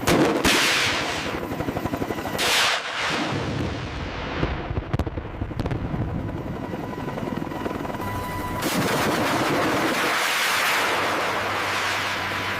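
Gatling gun firing bursts of rapid fire: a short burst at the start, another about two and a half seconds in, and a longer sustained burst from about nine seconds in.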